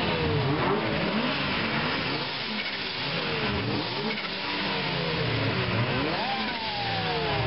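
Car engine being revved again and again, its pitch climbing and dropping in repeated sweeps over a low rumble.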